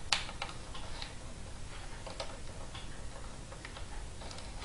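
Light, irregular clicks and taps of plastic as hands handle a loose replacement laptop keyboard and its keys, on a Dell Inspiron 1520. The sharpest click comes just after the start.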